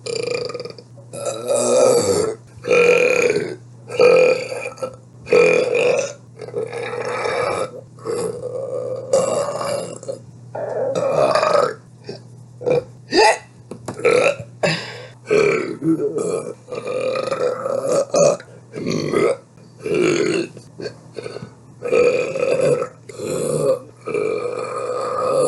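A woman's burps, one after another with short gaps: more than twenty, some short and some drawn out.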